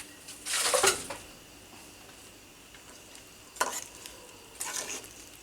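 A spoon stirring and scraping food in a cooking pot, in a few short bursts, the longest about half a second in.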